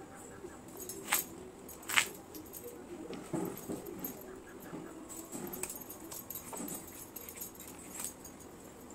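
Kitchen knife peeling and scraping skin off pumpkin and vegetables by hand, with two sharp knife clicks about one and two seconds in and lighter scrapes after. A faint whining is heard in the background about three seconds in.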